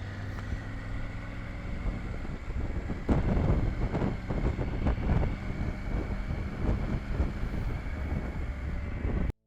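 Triumph Tiger 900's three-cylinder engine running steadily at low revs, with wind buffeting the microphone. The buffeting gets louder about three seconds in, and the sound cuts off abruptly just before the end.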